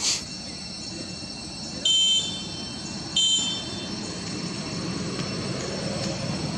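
Two short, shrill, high-pitched squeals about a second apart, of the kind young long-tailed macaques make, over a steady high insect drone.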